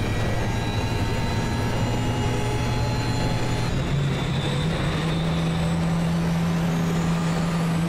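Small private propeller plane's engine running steadily, its hum stepping up in pitch about halfway through as it revs for take-off.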